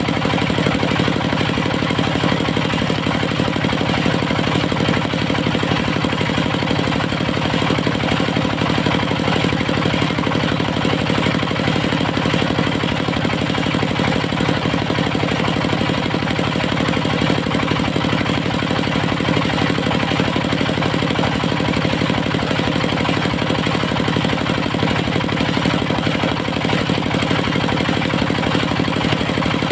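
Diesel engine of a portable circular-saw sawmill running steadily at constant speed.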